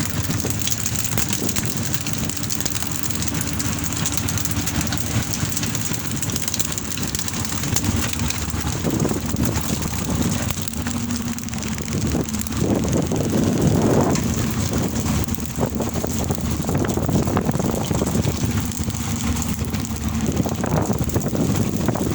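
Boat engine running steadily under way, with a constant rushing noise over a low hum.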